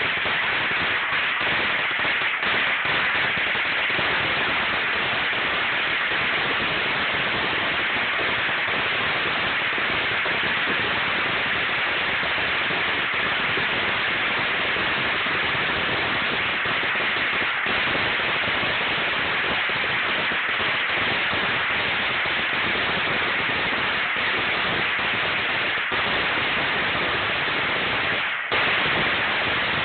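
A very long string of firecrackers going off in a dense, continuous rapid crackle at a steady level, with a brief dip just before the end.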